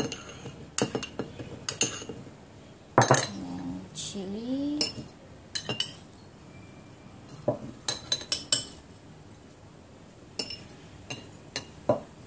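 Garlic cloves and sliced chillies being dropped into an empty glass jar, with scattered sharp clinks and clicks against the glass. A brief voice-like sound comes about three to five seconds in.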